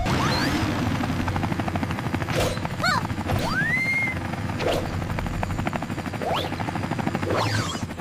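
Helicopter rotors chopping rapidly and steadily, the hovering sound of two cartoon helicopters. Several brief sliding tones run over it, one rising and then levelling off about three and a half seconds in.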